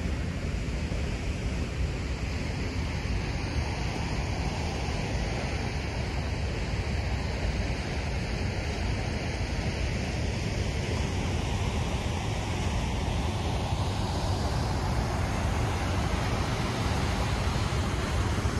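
Steady wind buffeting the microphone outdoors: an even rushing noise with a heavy, fluttering low rumble and no distinct events.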